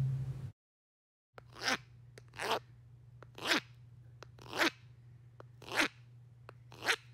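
Sound effect of footsteps squelching through thick, oozy mud: six soft steps about a second apart, over a faint low hum.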